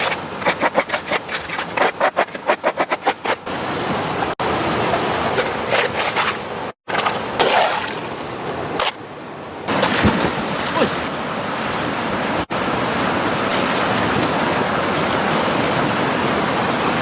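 Rushing, splashing water. A quick run of short pulses in the first few seconds gives way to a steady rush, broken by a few abrupt cuts.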